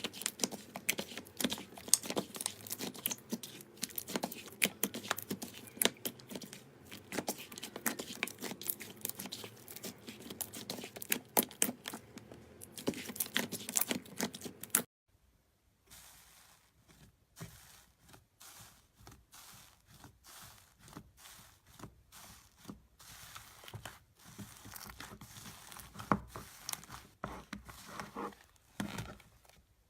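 Slime being squeezed and poked by hand, making a dense run of crackling, popping clicks. After a short break about halfway through, the clicks come back quieter and sparser.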